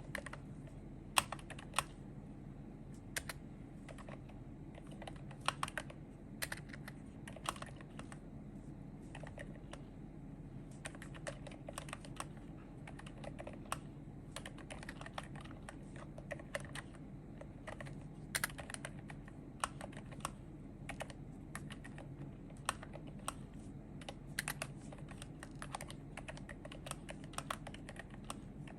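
Typing on a Glorious GMMK Pro mechanical keyboard with Akko Haze Pink silent linear switches and PBT MA-profile keycaps: a continuous run of irregular keystrokes, several a second, over a steady low hum.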